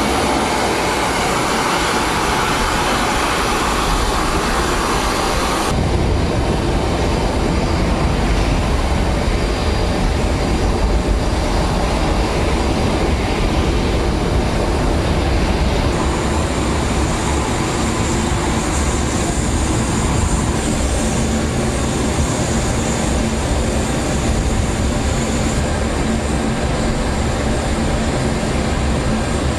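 Loud steady mechanical roar with a strong low rumble, its character changing abruptly about six seconds in and again around sixteen seconds.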